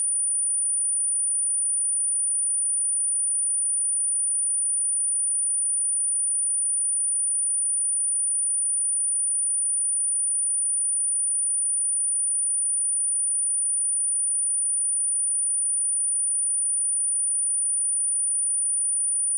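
A steady, high-pitched pure sine tone at 9437 Hz, a speaker test tone also used to shake water and dust out of a phone speaker, held at one unchanging pitch and level.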